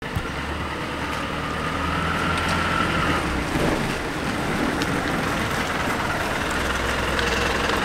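Bus engine idling: a steady low hum, with a high whine over it during the first three seconds.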